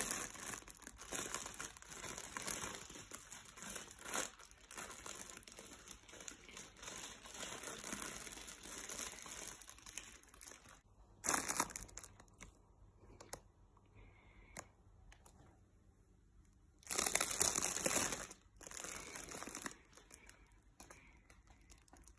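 Crinkly nylon cat play tunnel rustling as a cat moves about inside it: near-constant crinkling for about the first ten seconds, then quieter with a few separate bursts, the loudest about two-thirds of the way through.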